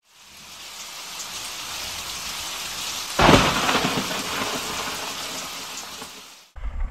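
Rain-and-thunder sound effect under a logo intro. A steady rain-like hiss swells in, a sudden loud thunder crack comes about three seconds in, and the sound fades, then cuts off just before the end.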